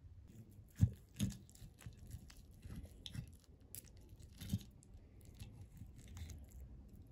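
Knife and fork on a china plate, clinking and scraping as stuffed chicken breast is cut and eaten, with a few sharper knocks about a second in and again midway.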